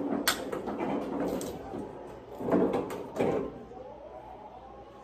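A golf club striking a ball: one sharp click about a third of a second in, then two duller thumps around the middle.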